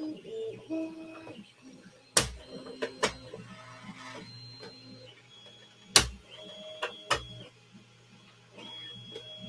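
Small desktop 3D printer printing: its stepper motors sing in short steady notes that change pitch as the print head moves, with several sharp clicks, the loudest about two and six seconds in.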